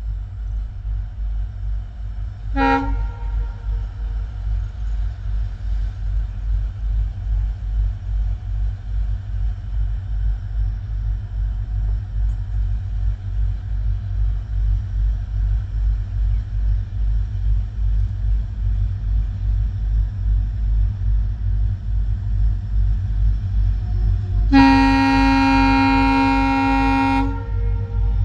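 Twin WDG-4 diesel-electric locomotives working hard under load, their two-stroke EMD engines throbbing in a steady low pulse that slowly grows louder as the train accelerates. A short toot of the multi-tone air horn comes about two and a half seconds in, and a long horn blast of about three seconds near the end.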